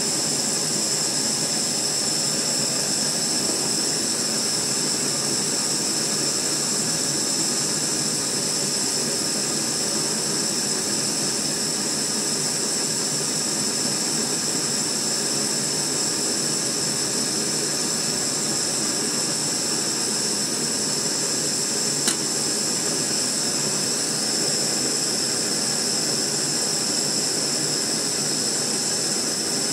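Peak gas-canister camp stove burning at full flame, a steady, quite loud hissing roar under a kettle of water being brought to the boil. A single light tick sounds about two-thirds of the way through.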